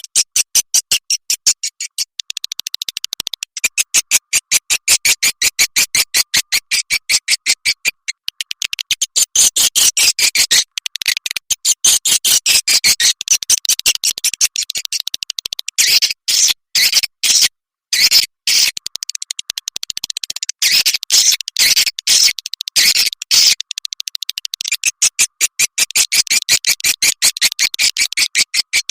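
Swiftlet lure recording: rapid, high-pitched chirping of swiftlets repeated in quick unbroken runs, with a few short breaks near the middle. It is a call sound of the kind played to draw swiftlets into a nesting house.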